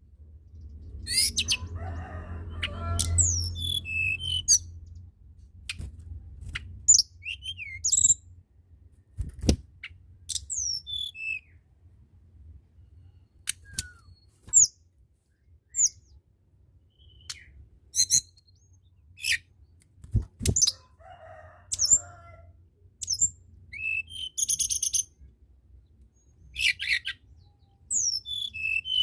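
Tledekan gunung singing: short, very high, thin whistled notes, mostly falling in pitch, given in scattered phrases every second or two, with an occasional rapid trill. A low rumbling noise sounds under the song for a few seconds near the start.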